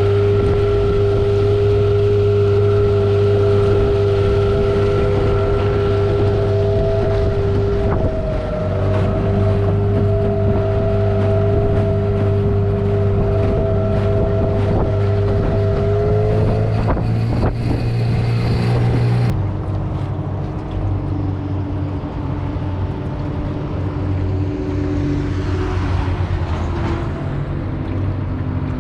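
Nissan Tohatsu 8 hp outboard motor running steadily, with wind buffeting the microphone. Its note dips briefly about eight seconds in and changes abruptly about two-thirds of the way through.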